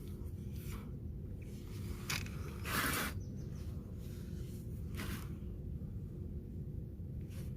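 Newly fitted hermetic compressor of a small R134a chiller humming steadily at low pitch on its first run after replacement. Several brief noisy sounds come over it, the longest about three seconds in.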